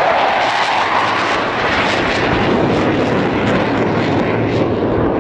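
A fixed-wing aircraft flying past, its engine noise loud and steady with a slowly shifting pitch.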